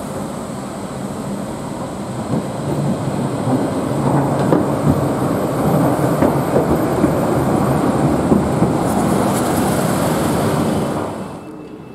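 Manyosen low-floor light-rail tram running along street track, its rolling wheel and drive noise growing louder as it passes close by. A bus drives past near the end, and the sound drops away sharply just before the end.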